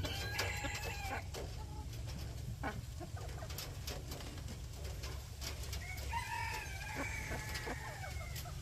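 Roosters crowing: a crow trailing off in the first second, then another long crow about six seconds in that lasts about two seconds. A steady low hum runs underneath.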